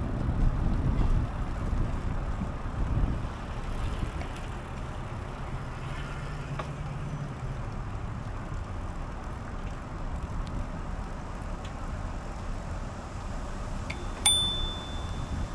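Wind and road rumble from a bicycle ride, heavier for the first few seconds. Near the end a bicycle bell is struck once and rings briefly.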